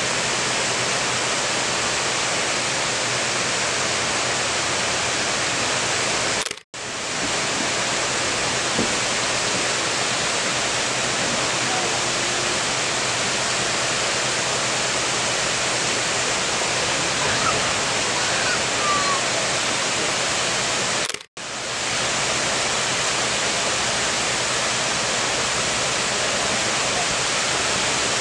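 Steady rushing of a waterfall pouring over a spillway onto rocks. The sound cuts out abruptly twice, about a quarter of the way in and about three quarters through.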